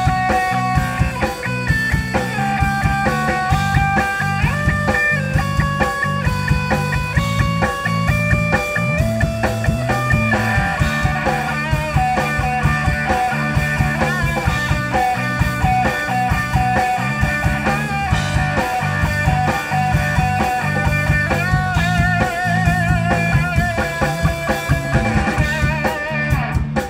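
Rock band playing live through a PA: electric guitar lines over bass and a steady drum-kit beat, no vocals.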